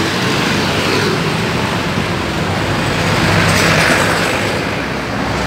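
Street traffic: motor vehicles running and passing, with a louder pass swelling up around three to four seconds in.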